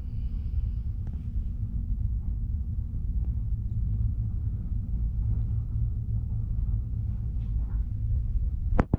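Steady low rumble inside a moving Peak 2 Peak gondola cabin as it travels along the cable, with one sharp click just before the end.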